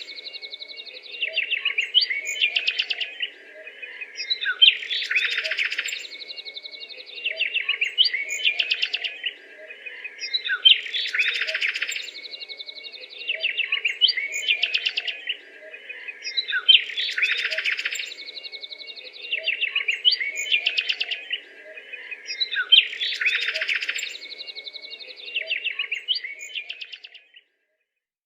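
Bird-like chirping and trilling calls used as a sound effect for the dinosaur Daemonosaurus, the same six-second sequence of chirps repeating as a loop about five times over a faint low hum. It cuts off near the end.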